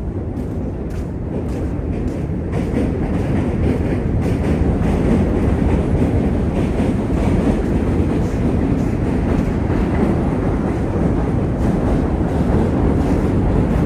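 A train, likely a subway train, rumbling past with a clickety-clack of wheels over rail joints. It grows louder over the first few seconds, then holds steady.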